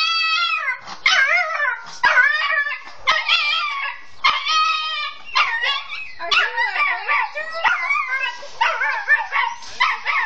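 Small dog barking over and over in high-pitched, wavering yaps, about one or two a second without a pause.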